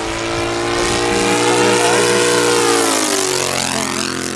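Kolm 155 engine of a large-scale radio-controlled Spitfire model running steadily in a flypast, its pitch dropping about three seconds in as the plane passes overhead and moves away.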